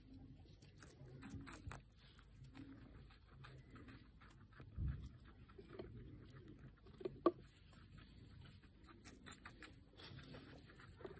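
A guinea pig biting and chewing red bell pepper: faint, irregular crunching clicks.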